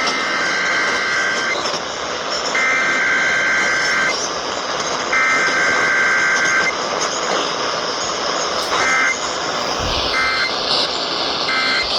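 NOAA Weather Radio SAME data bursts of an Emergency Alert System weekly test: three buzzy two-tone header bursts, each about a second and a half, then three short end-of-message bursts in the last few seconds, all over a steady hiss of radio static.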